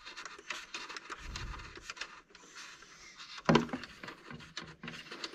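Handling noises from working on the plastic chassis of a Traxxas X-Maxx RC truck: scattered clicks, taps and rubbing of plastic parts, with one louder knock about three and a half seconds in.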